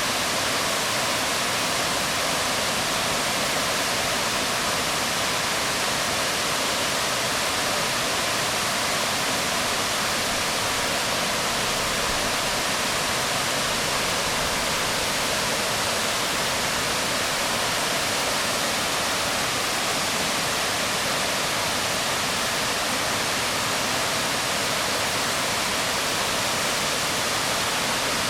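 Waterfall pouring onto rocks: a steady, unbroken rush of water.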